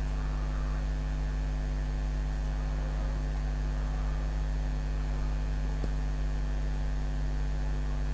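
Steady electrical mains hum on the recording microphone, with one faint click a little under six seconds in.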